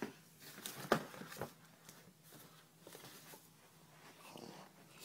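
Quiet rustling and handling noise from a phone being carried and moved, with a sharp knock about a second in and a softer one shortly after.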